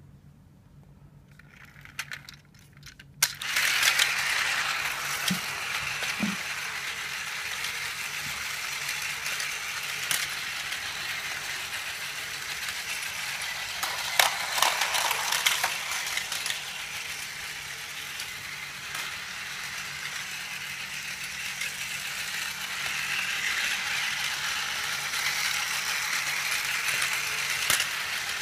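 Plarail E5 series Shinkansen Hayabusa toy train running on plastic track, its small battery motor and gears whirring steadily as the wheels rattle over the rails. It starts suddenly about three seconds in, after a few light clicks.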